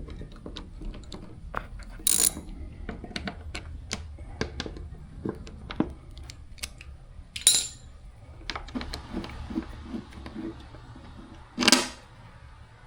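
Irregular small metallic clicks and rattles of hand tools and hardware working inside a car door, as the door lock actuator's screws are taken out. Three louder clatters come about two, seven and a half, and eleven and a half seconds in.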